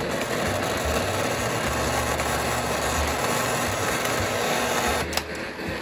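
O gauge toy train running along the layout track: a steady electric-motor whir and wheel rumble with an on-off low hum. The sound changes abruptly about five seconds in.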